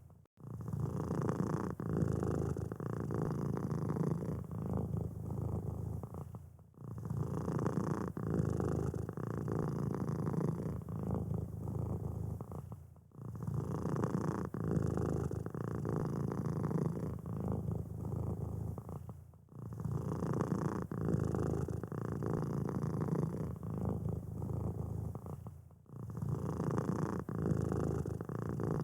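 Domestic cat purring steadily, a rough, low rumble, with short breaks to silence about every six and a half seconds where a short recording loops.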